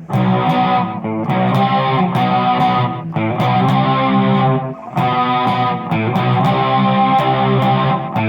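Electric guitar strumming chords through distortion and effects, with short breaks between phrases, about a second in, three seconds in and near the middle.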